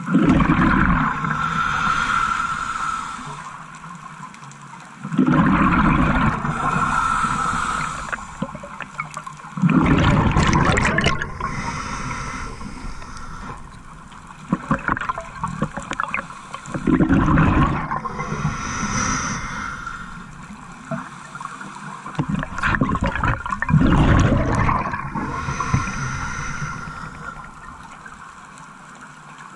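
Scuba diver breathing through a regulator, heard underwater: about five loud gurgling rushes of exhaled bubbles, each two to three seconds long and coming every five to seven seconds, with quieter breaths in between.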